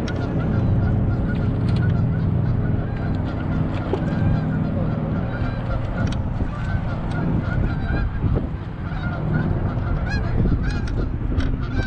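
Geese honking over and over, with some louder calls near the end, over a steady low rumble.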